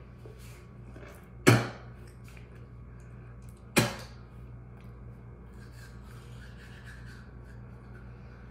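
Toothbrush scrubbing teeth. Two loud, sharp knocks come about a second and a half in and again near four seconds in.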